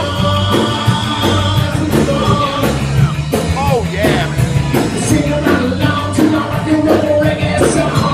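Loud rock music with a singing voice over a steady bass and drum beat.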